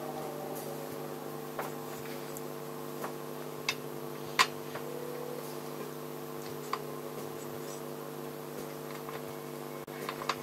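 A few scattered metallic clicks and taps as hands work on a carburettor fitted to a Kawasaki H1 500 engine, the loudest about four seconds in, over a steady electrical hum.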